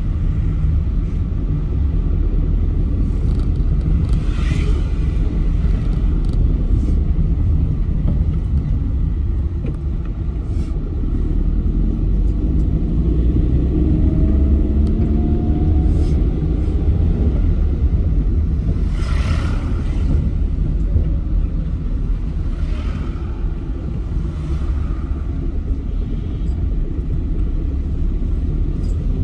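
Steady low rumble of engine and road noise from a vehicle being driven along a road, heard from on board. A few short hissing swells rise over it, the clearest about two-thirds of the way through.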